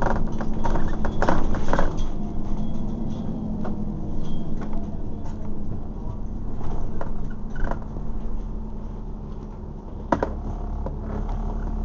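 Inside a double-decker bus: the engine runs with a steady low hum while loose interior fittings rattle and click as the bus slows to a stop. There is a sharp click about ten seconds in, and then the engine idles with a steady rumble.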